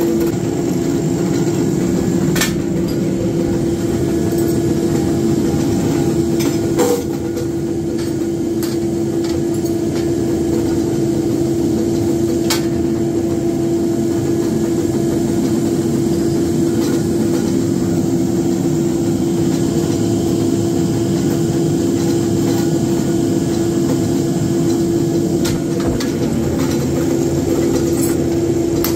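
Steady machine hum from a running flywheel power press, with a few sharp metallic clicks and knocks scattered through it.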